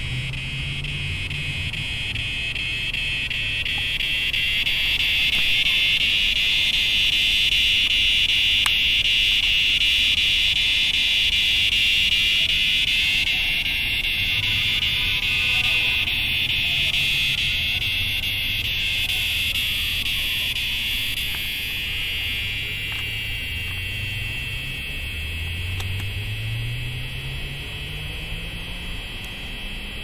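Chorus of cicadas: a dense, steady, high-pitched buzz that swells to its loudest in the first half and then eases a little. Underneath, a low hum rises in pitch near the end.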